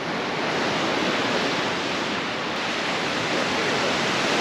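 Steady wash of surf breaking on a sandy beach.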